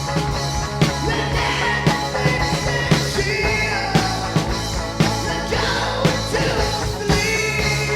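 Rock band playing a song, with drums striking a steady beat over bass and electric guitar.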